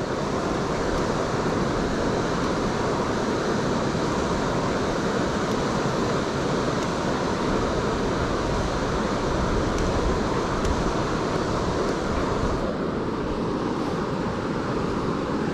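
Steady rush of river water flowing, its higher hiss thinning out about thirteen seconds in.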